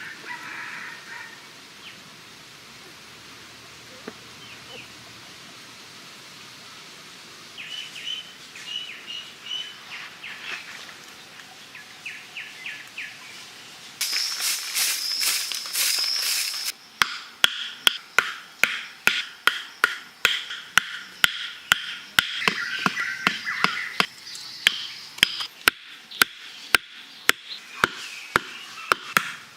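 Bird-like chirping. About halfway in, sharp knocks begin at two or three a second, over continuing high chirps or whines.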